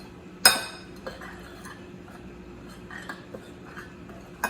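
A utensil clinking and scraping against a bowl while mixing a dry flour-and-Parmesan dredge: one sharp ringing clink about half a second in, then several lighter clinks.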